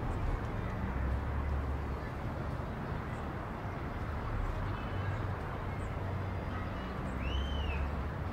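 Night-time city ambience: a steady low hum of distant traffic, with a bird's short chirp rising and falling about seven seconds in.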